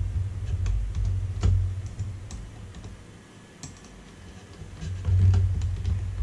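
Scattered small clicks and light knocks from the toaster oven's sheet-metal case and door parts being handled, over a low rumble that swells near the start and again about five seconds in.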